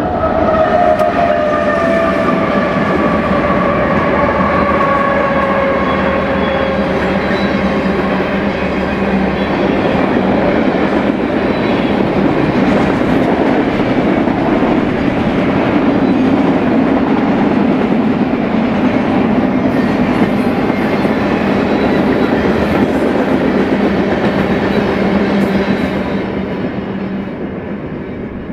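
BNSF train led by locomotive 6796 passing: its horn sounds a chord of several tones that falls in pitch as it goes by, dying away about six seconds in. Then comes a steady rumble of wheels and cars rolling past, with clacks over the rail joints, easing off near the end.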